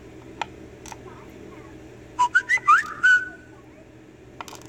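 Small lock pins clicking as they are tapped out of a brass cylinder plug onto a wooden pin tray. About halfway through comes a second-long burst of high, gliding whistle-like chirps, the loudest sound here.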